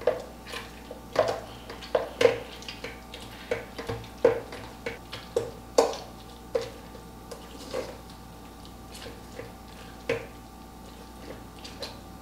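A spoon pressing cooked jabuticabas against a pasta colander to squeeze out their juice: irregular clicks and knocks of the spoon on the colander, about one or two a second, with the soft squish of the fruit skins.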